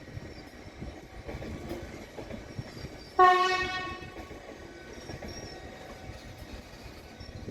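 A train horn sounds one short blast about three seconds in, a single pitched tone that starts suddenly and fades over about a second. Under it runs the steady rumble of a train.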